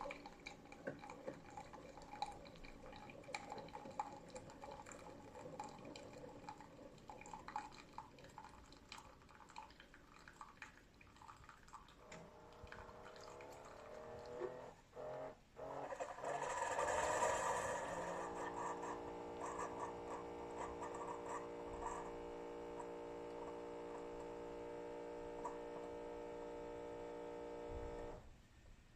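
Keurig K-Supreme Plus SMART single-serve coffee maker brewing: soft trickling and dripping with small clicks, then a louder sputtering hiss about two-thirds of the way in as the brew finishes, followed by a steady hum that cuts off about a second before the end.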